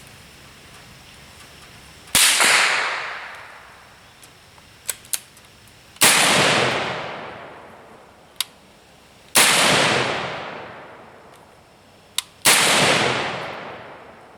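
Four gunshots about three to four seconds apart, each followed by an echoing tail that dies away over about two seconds. Faint clicks of gun handling come between the shots.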